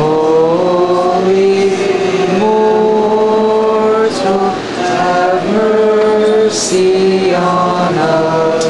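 Orthodox liturgical chant sung by several voices in slow, held notes that step from one pitch to the next, with brief pauses between phrases.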